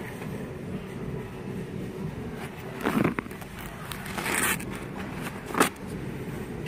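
Store background with a low steady hum, broken by three brief rustling scrapes about three, four and a half, and five and a half seconds in.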